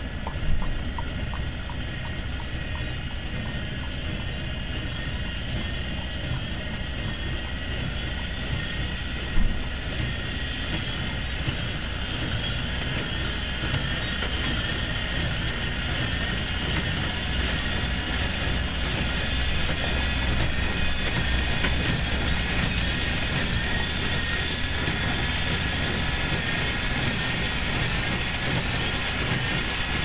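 John Deere small square baler running in a hayfield, its engine and plunger making a steady mechanical clatter. Two sharp knocks stand out, one just after the start and one about nine seconds in.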